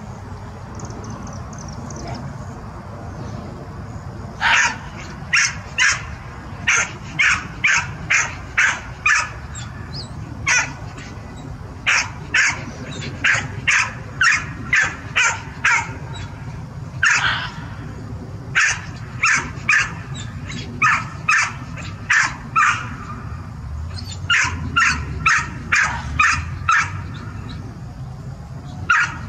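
Canine barking: runs of short, sharp, high barks, roughly two a second, starting about four seconds in and going on with brief pauses.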